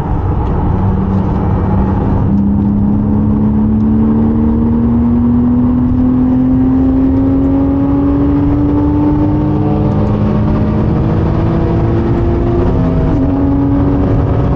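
Porsche 987.2 Cayman S's 3.4-litre flat-six engine pulling hard under load at track speed, its note rising slowly for about eleven seconds, dipping briefly near the end, then pulling on, over steady tyre and wind noise.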